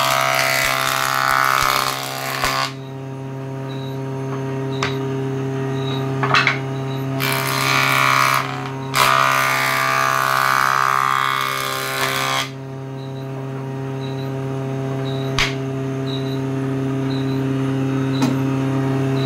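Woodworking jointer (surface planer) running with a steady hum while a wood block is pushed across its spinning cutterhead. The rough cutting noise comes in three passes: at the start, briefly around seven seconds in, and for about three seconds from nine seconds in, with a few sharp knocks between as the block is handled.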